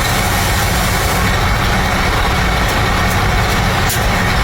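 An engine runs at a steady idle, a constant low drone with no change in speed. It cannot be the Patrol's own engine, whose cylinder head is off.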